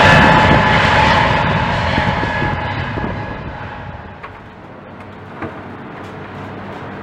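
Airbus A320neo's CFM LEAP-1A jet engines: a loud rush with a steady whine, fading away over the first three seconds or so. Then a much quieter stretch with a couple of faint clicks and a low steady hum.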